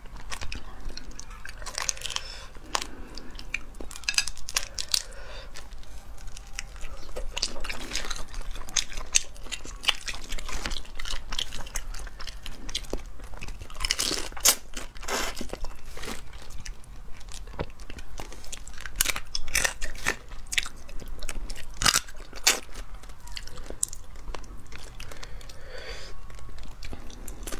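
Close-miked crunching and chewing of spicy cooked shellfish, with shells cracking under fingers and teeth in many irregular sharp clicks.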